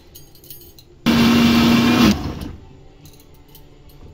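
Kitchen mixer grinder's motor run in one short burst of about a second, grinding boiled spinach to a purée in its steel jar: it starts suddenly with a steady hum and winds down over about half a second. A few faint clicks of the jar and lid being handled come before it.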